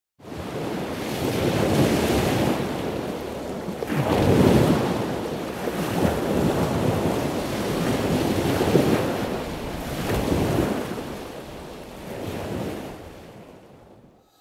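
Rushing sea noise, like waves or water surging, swelling and ebbing several times before fading out near the end.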